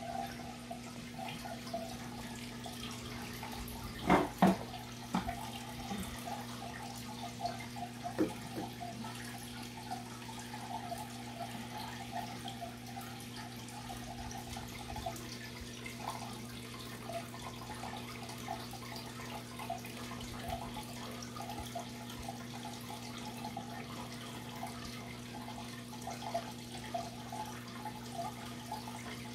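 Aquarium filter running: water trickling and bubbling over a steady low electrical hum. Two sharp knocks about four seconds in, and a smaller one a few seconds later.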